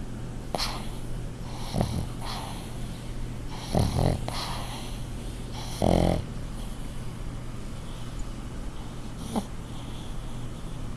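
Pug snoring in deep sleep: about six separate snorting breaths at uneven gaps, the loudest about six seconds in, over a steady low hum.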